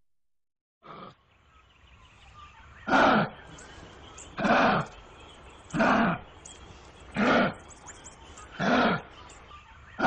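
Wallaby (a small kangaroo) calling: a run of short calls, each under half a second, repeated about every one and a half seconds, starting about three seconds in after a fainter single call about a second in.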